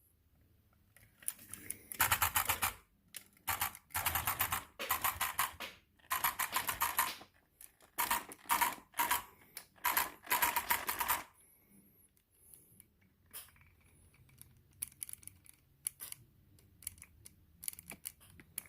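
Front differential gears of a 2019 Arrma Outcast 6S RC car clicking rapidly in bursts of about a second, several in a row, then a few scattered single clicks in the second half. The clicking comes from differential teeth that have ground down.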